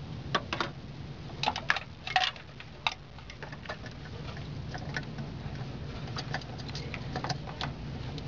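Clicks and light knocks of an HID bulb and headlight housing being handled and fitted, a cluster of sharper clicks in the first three seconds and fainter ticks after, over a steady low hum.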